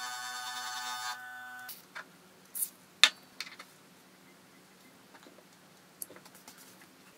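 Steel parts of a boring head clicking and clinking against each other as they are handled and fitted together by hand, a handful of sharp metallic clicks with the loudest about three seconds in. Before them, a steady ringing tone stops about a second and a half in.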